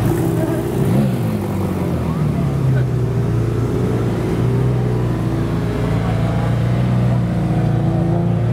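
McLaren 720S twin-turbo V8 through a Boden Stage 2 titanium full exhaust, running at low revs as the car creeps forward, with a brief rise in revs about a second in.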